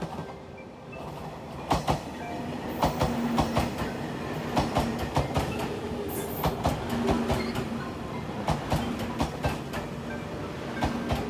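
JR Shikoku 8000-series electric train pulling in alongside the platform: its wheels click rapidly and unevenly over the rail joints, louder from about two seconds in, over the steady rumble of the passing cars.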